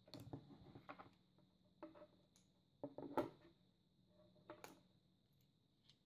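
Light handling sounds on a wooden tabletop as a coaxial cable with a fitted compression connector is set down and a plastic compression crimping tool is picked up. There are a few scattered clicks and knocks with short rustles, the sharpest about three seconds in, over a faint steady high-pitched whine.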